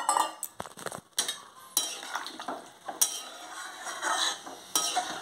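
Long metal spatula stirring a wet chicken and potato curry in a kadai, scraping against the pan in repeated strokes about once a second, opening with a sharp clink.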